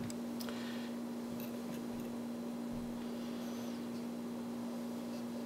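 A steady low electrical hum with a few faint clicks and small handling noises early on.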